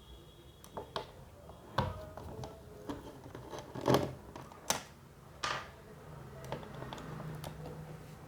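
Scattered small clicks and taps of plastic and metal parts being handled as the stock CPU-cooler retention bracket is unfastened from an AM4 motherboard, about half a dozen knocks with the loudest about four seconds in.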